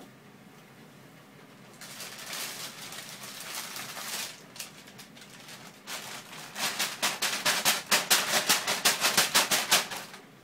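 Thin plastic carrier bag rustling and crinkling as it is handled. The loudest part comes in the second half: a rapid, even run of sharp crinkles, about eight a second, as the bag is shaken.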